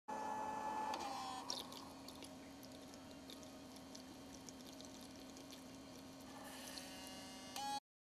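Keurig coffee maker running: a pump whine that winds down about a second in, then a low steady hum with small clicks, and the whine picking up again near the end before the sound cuts off suddenly.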